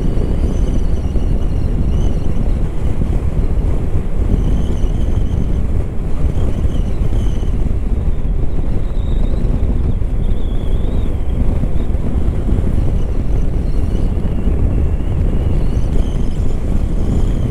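Wind rushing over the microphone on a moving motorcycle, over the steady drone of a Hero Xpulse 200 4V's single-cylinder engine at cruising speed. Faint wavering high whines come and go.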